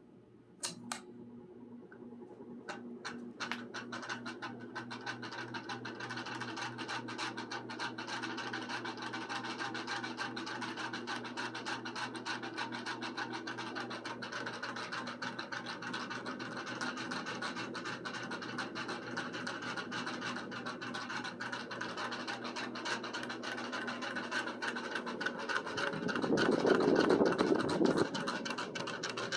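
Lasko ceiling fan starting up: a few clicks, then the motor hum and blade noise build over several seconds and hold steady, with a dense rapid ticking and scratching running through it. Near the end a louder rush lasts about two seconds.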